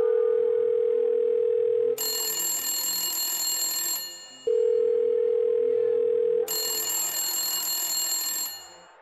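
Telephone call ringing out: twice, a steady low ringback tone for about two seconds followed by about two seconds of bright electronic phone ringing. It is the call to the restaurant going through, and the ringing stops just before it is answered.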